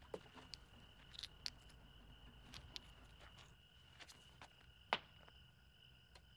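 Faint steady cricket chirping, with scattered light ticks and rustles and one sharper click about five seconds in.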